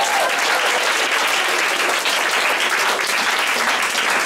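Crowd applause: many people clapping steadily, with the last sung note of the song ending just as the clapping begins.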